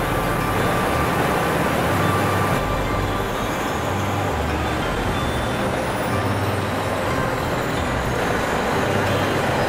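Heavy truck's diesel engine running steadily, with an abrupt change in the sound about two and a half seconds in.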